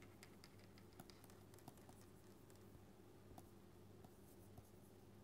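Near silence: faint scattered ticks and taps of a stylus writing on a tablet PC screen, over a low steady electrical hum.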